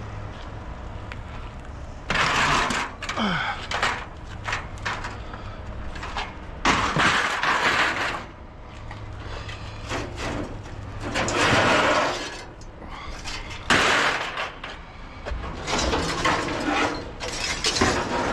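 Scrap being thrown onto a pile: a series of about five loud crashes and clatters a few seconds apart.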